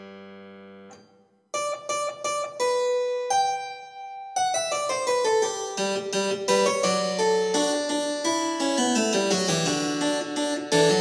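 Solo piano music: a held chord dies away in the first second, then after a short pause come a few separate chords, and from about four seconds in a fast, busy passage of quick notes.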